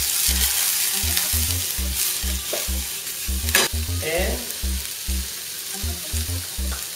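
Sliced eggplant, onion, green pepper and sun-dried tomato sizzling steadily as they sear in olive oil in a frying pan over high heat, tossed in the pan. A sharp knock about halfway through.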